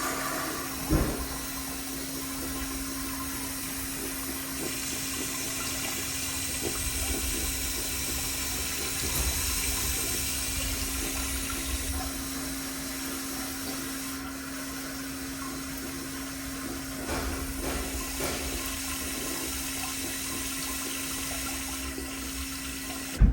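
Toilet flush running on: water rushing and refilling with a steady hum, a knock about a second in and a sharp click at the very end.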